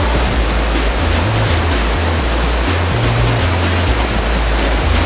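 Mountain stream cascading over rocks in a small waterfall: steady rushing water, with an uneven low rumble underneath.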